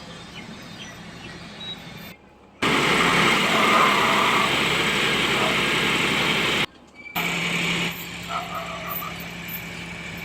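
John Deere tractor's diesel engine running, heard across several abrupt cuts. It is loudest and noisiest in a middle stretch of about four seconds, and otherwise a steadier, quieter hum.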